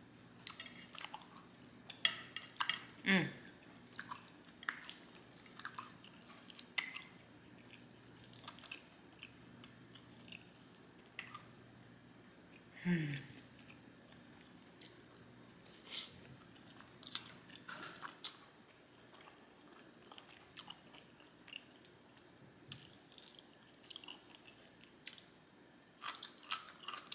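Close-up chewing of Korean black bean noodles (jjajangmyeon), with many short wet smacks and clicks of the mouth. Two louder mouth sounds, each dropping in pitch, stand out about three and thirteen seconds in.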